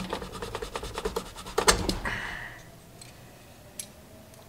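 Needle-nose pliers working at the cotter key and clip that hold a golf cart's brake cable to the rear brake lever. A quick run of small metal clicks and scrapes lasts about two seconds, with one sharper click near the middle. A single faint tick follows later.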